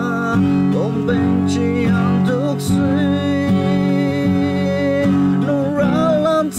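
A man singing a slow melody in long, wavering held notes, accompanying himself on a strummed acoustic guitar.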